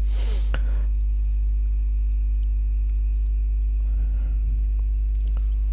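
A steady low hum with a couple of faint clicks.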